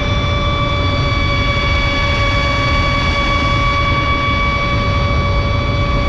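Pro Boat Impulse 31 RC boat's brushless electric motor, on a 6S battery, whining at a steady high pitch as the boat runs at speed, over a low rushing rumble of water and spray against the hull.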